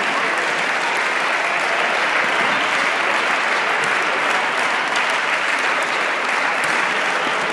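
Spectators applauding steadily, many hands clapping at once.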